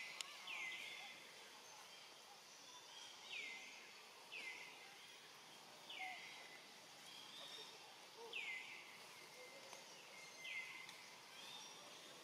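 A short animal call, falling in pitch, repeated seven times about every one to two seconds over a faint outdoor background.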